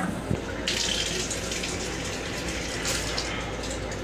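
Train lavatory sink faucet running, water splashing into the small basin, starting just under a second in.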